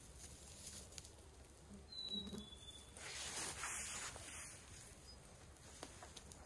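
Faint crackling and rustling from a freshly lit campfire of dry twigs and tinder catching and smouldering, with a short high chirp about two seconds in.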